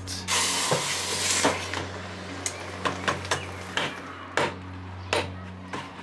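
Hot silicon carbide casting mold hissing for about a second and a half as it is plunged into a bucket of water. Then about eight sharp, irregularly spaced knocks as a metal meat-tenderizer mallet strikes the mold in the water to break it open.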